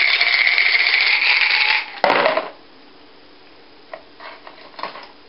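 Yahtzee dice rattling hard in a red plastic shaker cup for about two seconds, then a short clatter as they are tipped out, followed by a few light clicks of dice.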